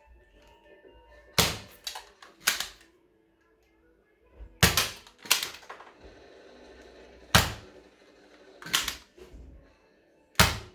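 Toy foam-dart blaster pistol being cocked and fired: about eight sharp plastic clacks, irregularly spaced.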